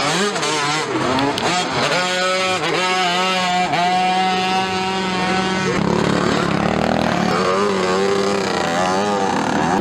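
Several small youth dirt bikes racing, their engines revving up and down in overlapping rising and falling whines. About halfway through, one engine holds a steady high pitch for about two seconds.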